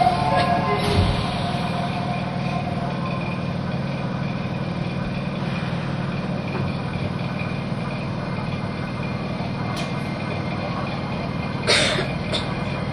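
Steady low hum of a Nagoya Subway Sakura-dori Line train standing at the station platform, with one sharp click near the end.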